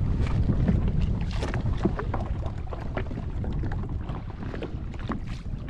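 Low wind rumble on the microphone out on the water, with scattered small clicks and knocks throughout.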